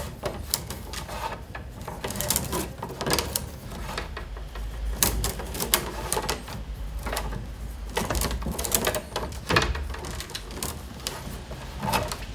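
Peeled wicker rods being woven around the upright ribs of a basket wall: irregular clicking, scratching and rustling as the willow rods are pushed through and rub against each other.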